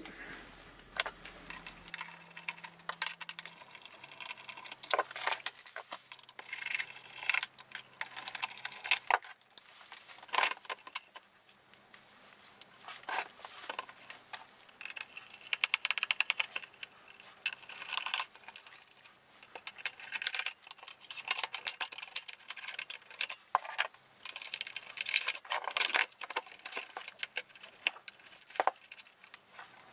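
Irregular metallic clinks, clicks and rattling of screws, hand tools and metal module parts being handled while the transceiver's modules are unscrewed and pulled out, with a quick run of rapid ticks about halfway through.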